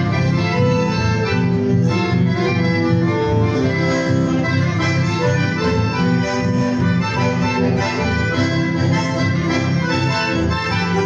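Accordion and bandoneón playing an instrumental chamamé together, with steady held chords and a running melody.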